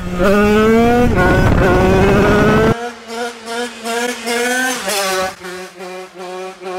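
Tuned HM two-stroke dirt bike with a TPR 76 kit revving hard under acceleration up through the gears, its pitch climbing with a gear change about a second in. About three seconds in, the engine is heard from the roadside, thinner and more distant, holding high revs with a brief dip in pitch near the five-second mark as it wheelies away.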